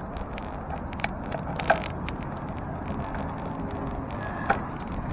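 Street noise heard from a moving bicycle: a steady low rumble of road and traffic noise, broken by three short, sharp clicks.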